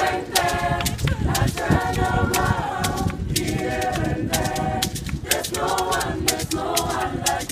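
Gospel choir singing a cappella in several-part harmony, with frequent sharp clicks over the singing.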